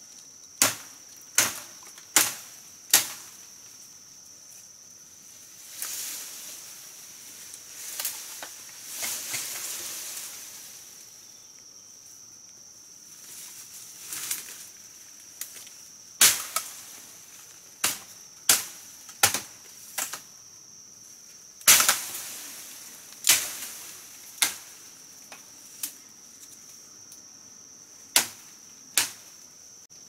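Sharp blows of a tool striking wood, about fifteen in all, coming in quick runs with a lull in the middle where there is some rustling. Under them runs a steady high-pitched drone of rainforest insects.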